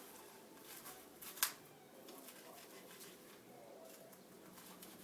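Faint knife work as chicken breast meat is filleted off the bone: quiet scraping and light taps, with one sharp click about a second and a half in.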